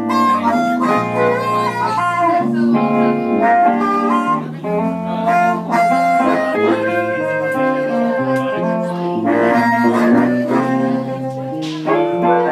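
Live blues band: a harmonica plays a lead of long held notes over a hollow-body electric guitar and electric bass.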